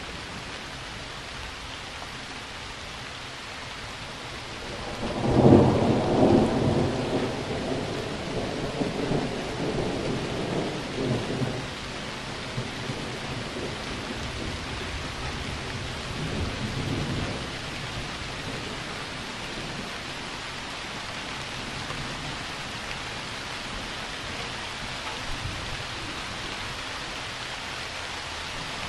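Steady rain hissing, with a thunderclap about five seconds in. Its low rumble rolls on in swells for several seconds before fading, and a fainter roll of thunder follows a few seconds later.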